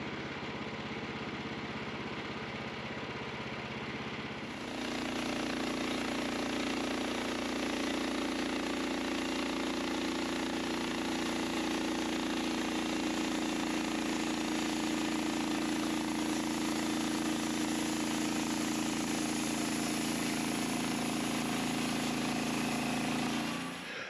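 Norwood LumberMate portable band sawmill's gas engine running steadily at a lower speed, then about four and a half seconds in stepping up to full speed as the band blade cuts through a log cant. It is a light shaving pass to take the wane off the cant's face, and the run cuts off just before the end.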